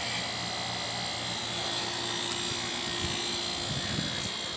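Newly installed heat pump running: a steady mechanical hum with several held tones.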